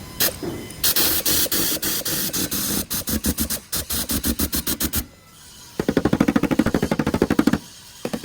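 Rapid series of sharp strikes on car body metal during fender-edge repair. A run of about six strikes a second lasts some four seconds, then a faster burst of about fifteen a second, and a short burst near the end.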